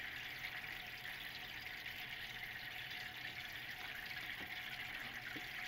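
Steady faint hiss of background noise, even throughout, with no distinct events.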